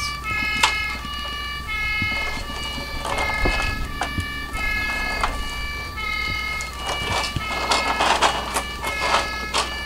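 Electronic siren from a Bruder toy light-and-sound module, sounding in quick stepped tones that repeat over and over, with clicks and knocks of plastic toy parts being handled.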